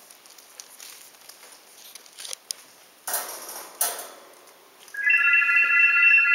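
Puppies' paws patter and scrabble on newspaper, with two short crackles of paper a little past the middle. About five seconds in an electronic telephone ring starts: a loud, steady chord of several high tones with a pulsing edge.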